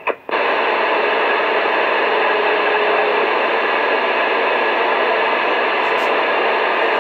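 CB radio receiver hissing with steady static between transmissions, its squelch open and no one talking. It starts just after a brief gap and holds level, thin and band-limited like radio audio.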